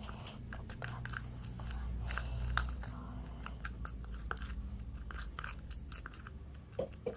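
Slime made from glue and liquid detergent being worked by hand or with a stirrer, giving many small, irregular sticky clicks over a steady low hum.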